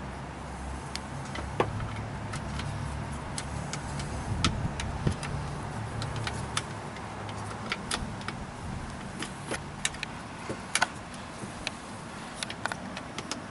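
Scattered light clicks and ticks of hand tools and Torx screws being started by hand on a replacement steering-column multifunction switch, over a low steady hum that fades out about eight seconds in.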